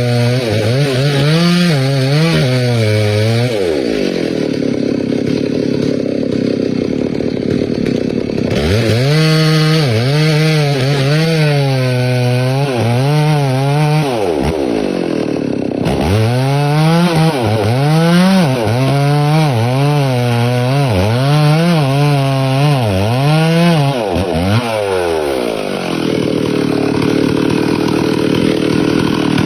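Chainsaw cutting into a big tree, running hard with its engine pitch dipping and recovering over and over as the chain loads up and frees in the wood. Twice it eases off to a lower, steadier note for a few seconds, once before about the ninth second and again near the end.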